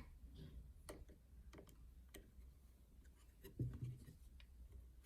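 Faint, scattered metallic clicks with a slightly heavier knock about three and a half seconds in, from a screwdriver working the screws on a sewing machine's base.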